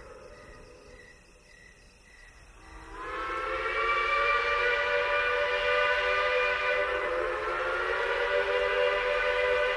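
A Shay locomotive's Lunkenheimer three-chime steam whistle blows one long blast. It comes on about three seconds in, its chord sliding up in pitch as it opens, then holds steady, wavering briefly near the end. Before the blast there is only a faint, fading tone.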